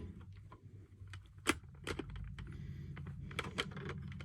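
Irregular plastic clicks and taps of a battery being forced into the battery compartment of an i9070 smoke alarm that is hard to get it into, with a sharper click about one and a half seconds in. A low steady hum runs underneath.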